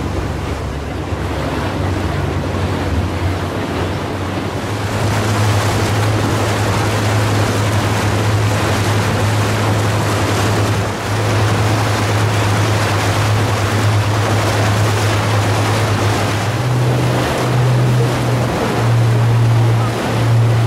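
Tour boat under way: the engine drones steadily under the rush of water past the hull and wind on the microphone. About four seconds in the rushing grows louder, and near the end the engine note steps slightly higher and begins to pulse.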